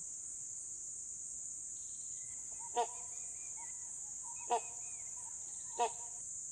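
Tropical rainforest ambience: a steady high-pitched drone of insects, with faint bird chirps and three short, loud calls spaced about a second and a half apart.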